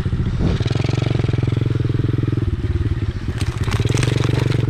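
A mini motorcycle's small engine runs steadily under throttle while riding over sand, easing a little just past halfway and picking up again. Near the end there are a few short crackles as the tyres run over dry sticks and brush.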